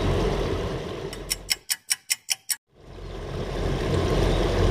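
A steady outdoor background hiss and low rumble fades out. About eight quick, evenly spaced clock ticks follow, roughly five a second, over dead silence, then the background fades back in. This is an edited-in ticking sound effect marking time passing while waiting for a bite.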